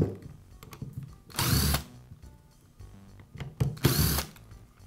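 Cordless drill/driver running in two short bursts of about half a second each, backing out the screws that hold a drill's rear cover.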